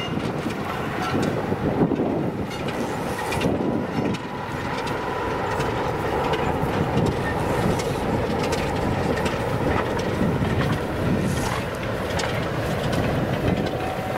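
Diesel locomotive working a train, a steady engine sound with occasional sharp clicks from the wheels on the rails.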